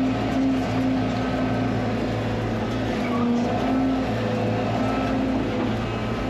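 Hydraulic excavator's diesel engine running steadily under load while it digs beneath a large tree stump to work it loose, its engine note wavering slightly.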